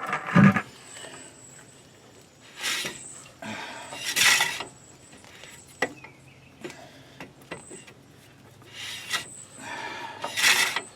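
Intermittent scraping and rubbing, with a few sharp clicks between, as a rear brake dust shield is worked into place.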